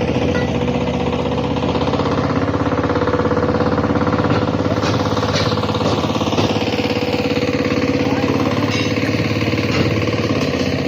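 An engine-driven machine running steadily at one speed, with a few sharp knocks in the second half.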